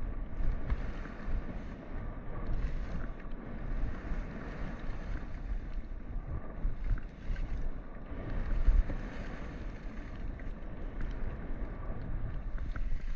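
Wind buffeting the camera microphone with a low rumble as a skier descends, under the hiss of skis sliding on snow that swells and fades every second or two through the turns.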